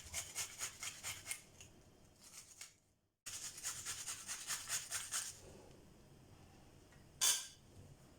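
Half a red onion being grated on a fine hand grater: quick rasping strokes, about four a second, that pause briefly and then resume. Near the end comes a single sharp knock.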